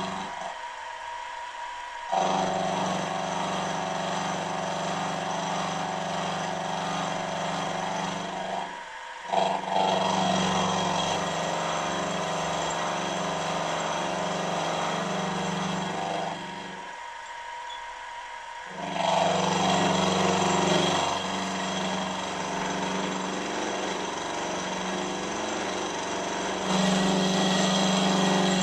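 Milling machine taking a skimming cut across the face of a small cylinder end plate with an end mill: a steady motor hum under a continuous cutting noise. The low hum drops away briefly a few times and comes back, louder near the end.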